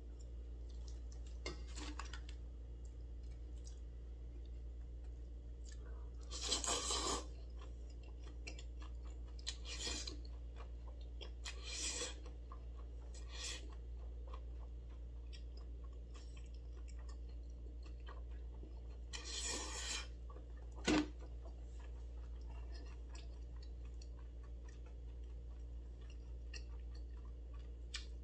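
A person eating spicy chewy noodles and rice cakes: chewing with several short slurps, and one sharp clink of chopsticks against a bowl about three-quarters of the way through, over a steady low hum.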